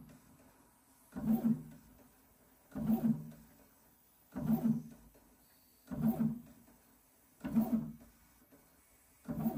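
Original Prusa XL 3D printer's stepper motors humming in regular short bursts about every one and a half seconds, six times, as the print head moves back and forth laying down the first layer.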